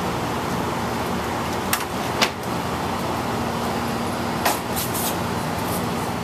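Steady road-traffic noise with a low hum underneath, broken by a few short sharp clicks and knocks.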